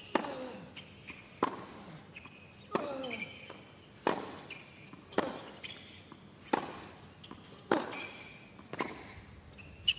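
Tennis rally on a hard court: a racket strikes the ball eight times, alternating between the two players, about once every second and a quarter, with fainter ball bounces between the hits.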